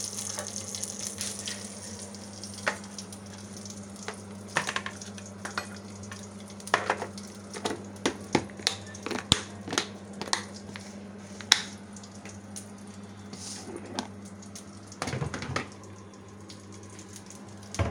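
Hot mustard oil with tempering spices sizzling in a pan just taken off the flame, the hiss dying away over the first couple of seconds. Then scattered sharp clicks and knocks of kitchen utensils being handled, the loudest sounds here, over a steady low hum.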